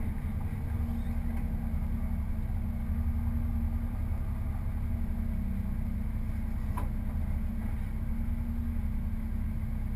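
Opel Astra GSi's engine idling steadily, heard from inside the cabin. A single short click about seven seconds in.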